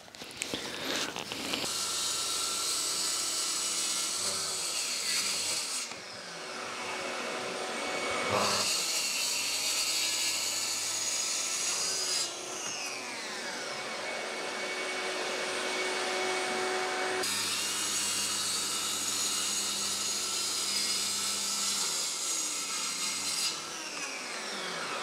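Plunge-cut track saw running along its guide rail and cutting 19 mm birch plywood, in three stretches of cutting with the motor winding down in falling pitch between them. Under it runs the steady rush of a dust extractor.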